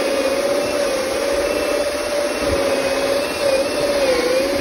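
Cordless drill running under load as it bores a hole through a house's vinyl siding and wall. Its motor pitch is steady but wavers slightly, sagging near the end.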